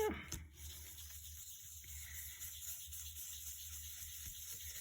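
Quiet room tone: a steady low hum and hiss, with no distinct sound standing out.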